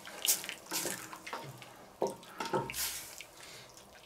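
Wooden spoon stirring liquid stew in a stainless steel kettle, with irregular sloshes and scrapes against the pot as flour is worked into the broth.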